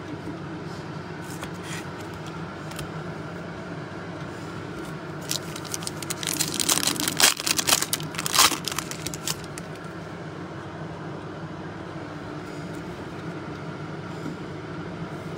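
Plastic wrapper of a Mosaic NFL trading-card pack being torn open and crinkled for about four seconds, starting about five seconds in, over a steady low hum.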